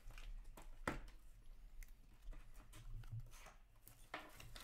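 Trading cards being flipped and slid through the hands, a run of soft clicks and rustles with a sharper tick about a second in, over a low steady hum.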